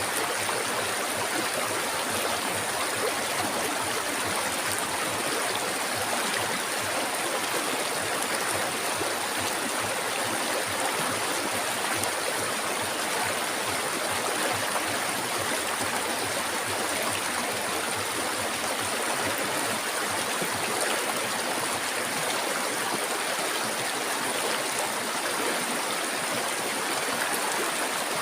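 River water flowing steadily, a continuous even rush with a thin, steady high hiss above it.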